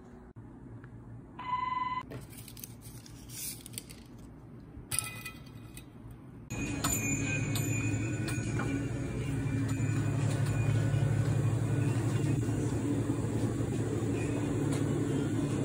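A short electronic beep and a few clicks over a quiet room, then, about six and a half seconds in, a sudden louder steady low hum: the ambience of a convenience store with its refrigerated drink coolers.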